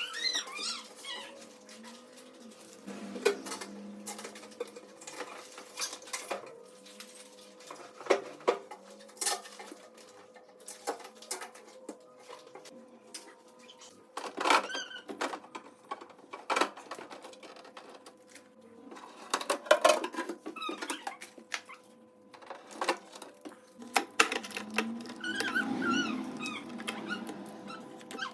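Repeated clicks and knocks of objects being handled, with bouts of high, wavering squeaks several times: at the start, around the middle and near the end.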